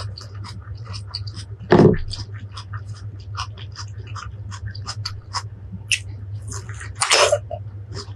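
Close-miked chewing of crisp fresh fruit: a rapid run of small wet mouth clicks and crunches, with two louder crunching bites, one about two seconds in and one about seven seconds in.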